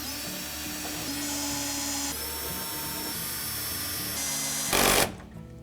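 Power driver running screws into a dishwasher's outer door panel, its motor whining steadily with a few shifts in pitch. A brief louder burst comes just before it stops, about five seconds in.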